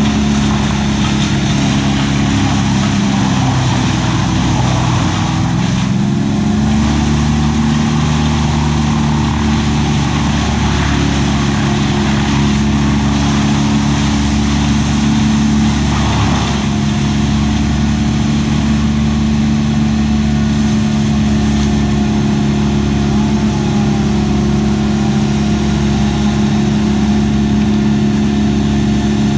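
An engine runs steadily at high speed. About three seconds in, its pitch sags, then climbs back to its earlier speed a few seconds later.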